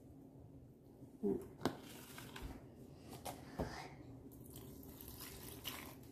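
A few faint knocks and clinks of a stainless-steel sieve and mixing bowl being handled, the first pair about a second in and another pair around three and a half seconds in.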